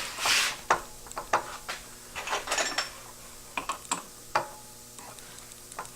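Scattered metallic clicks, clinks and knocks of tooling being handled and fitted at a milling machine: the drill chuck and a 9/16 drill bit being set up, with the spindle stopped.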